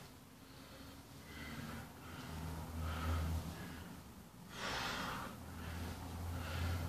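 A man breathing hard during a set of squats: short breaths about once a second, with one louder, longer breath just under five seconds in.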